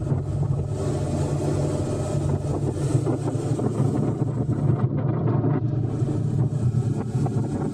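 Motorcycle engine running steadily while riding at road speed, with wind noise on the microphone.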